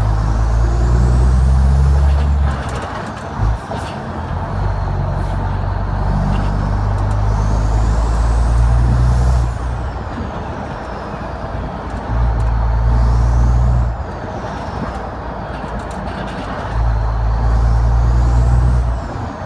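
A Renault Magnum 440's Mack E7 E-Tech straight-six diesel pulling under load. Its drone drops away and comes back three times as the manual 16-speed gearbox is shifted up through the gears. A turbo whistle rises and falls over it with each pull.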